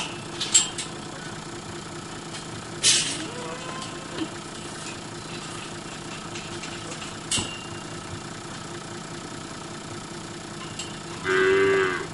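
Toyota four-wheel drive's engine idling steadily, with a few sharp knocks scattered through it. Near the end a cow lets out one loud moo.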